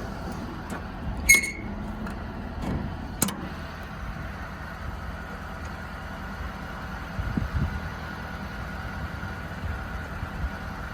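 A diesel truck engine idles steadily while metal clanks and clicks sound over it: a sharp clank that rings briefly about a second in, a lighter click about two seconds later, and a few soft thumps later on.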